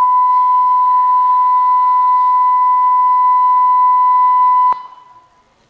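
Steady 1 kHz test tone, the reference beep that goes with television colour bars, played over the hall's speakers. It holds one unchanging pitch for nearly five seconds, then cuts off suddenly, leaving a short echo of the hall.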